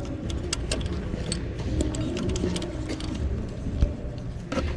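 Scattered light metallic clicks and taps of steel washers, a bolt and a wrench being handled as a clamp is fitted, over a steady low background rumble.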